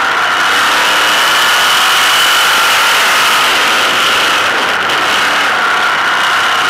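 Sprint car's V8 engine running with a steady high-pitched note, loud and close as heard from on board the car.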